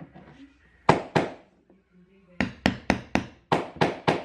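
Hammer blows: two sharp strikes, then after a pause a quick run of seven more at about four a second, as in hammering during house renovation work.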